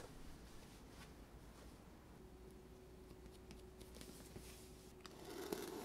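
Near silence: room tone, with a faint rustle of a cardboard product box being handled near the end.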